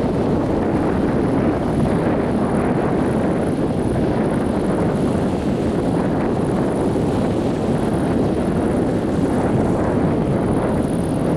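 Wind buffeting the microphone, a steady low rumble with no breaks.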